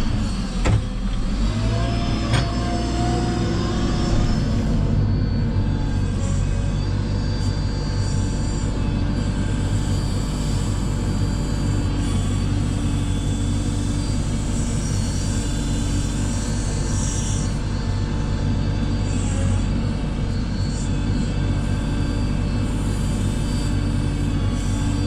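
A steady low machine hum, even and unbroken, with two sharp knocks in the first few seconds.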